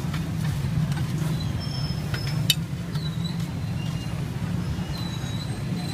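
Steady low engine rumble of motor traffic, with one sharp click about two and a half seconds in.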